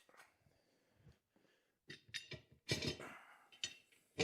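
Metal beadlock ring clinking and scraping against the wheel rim as it is set in place, a few sharp knocks and a short scrape from about two seconds in.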